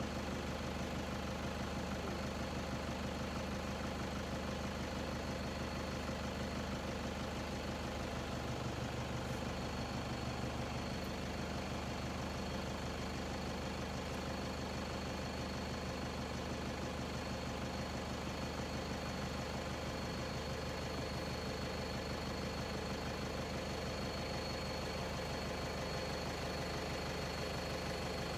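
A vehicle's engine idling steadily, with a thin, steady high tone above it.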